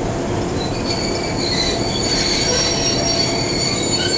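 Locomotive brakes squealing on the wheels as it slows to a stop: a high, thin squeal of several pitches that starts about a second in, over a steady low rumble in the cab.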